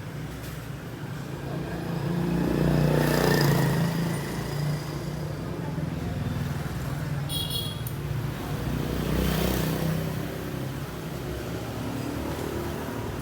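A motor vehicle engine running, swelling louder about three seconds in and again near ten seconds, with a brief high-pitched tone in between.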